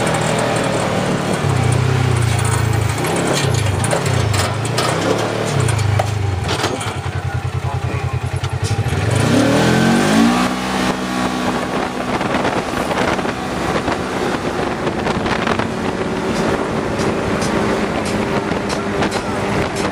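Polaris RZR 900 side-by-side's engine running under way, its pitch rising and falling repeatedly as the throttle is worked. About halfway through it climbs smoothly and settles into a steadier, higher drone.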